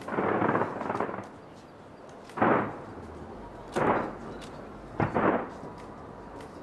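Fireworks exploding overhead: a crackling burst at the start, then three sharp bangs about a second and a half apart.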